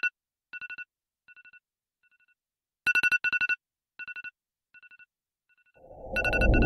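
Smartphone alarm ringing: a loud burst of rapid two-pitch beeps followed by three fainter, fading bursts, the pattern repeating about every three seconds. Near the end a loud low swell of sound rises under the last burst.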